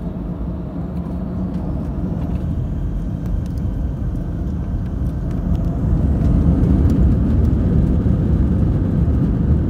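Airbus A321 jet engines heard from inside the cabin over the wing: a steady rumble that grows louder about five to six seconds in as the engines spool up for the takeoff roll.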